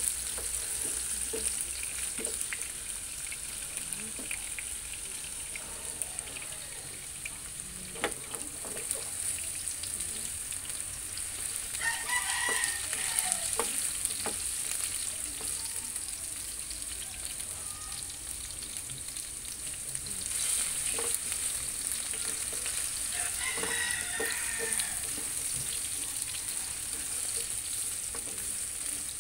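Diced carrots and potatoes sizzling steadily in oil in a nonstick frying pan, stirred with a spatula that scrapes and taps against the pan. A rooster crows twice in the background, once near the middle and once later on.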